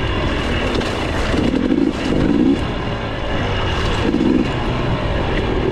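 Dirt bike engines revving in short bursts as they ride over rough, bumpy ground, with heavy wind rumble on the microphone.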